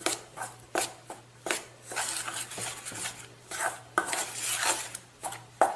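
Hand mixing damp red rice flour in a stainless steel bowl for puttu: irregular scraping and rubbing strokes against the metal, about one or two a second, as the flour is worked so the water reaches all of it.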